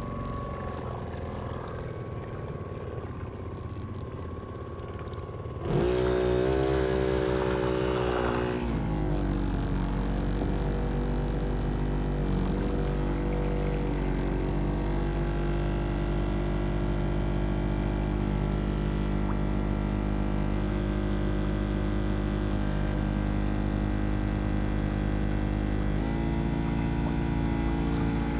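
Motorboat engine idling, then throttled up about six seconds in with a rising pitch, settling into a steady run under way. Its note shifts slightly a couple of seconds before the end.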